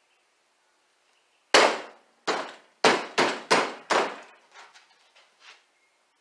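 A run of sharp knocks on a paddle template taped to a honeycomb core, pressed and struck down by hand to seat the double-sided tape: six loud knocks, then a few fainter ones trailing off.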